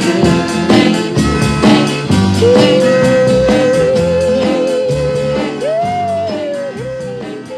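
Instrumental outro of a pop song with drums and guitar, a long held wavering note coming in about two and a half seconds in; the whole mix fades out near the end.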